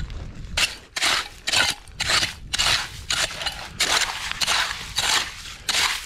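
Small hand rake's metal tines scraping and crunching through wet beach gravel and shells in repeated strokes, about two a second: raking a gravel bed for clams.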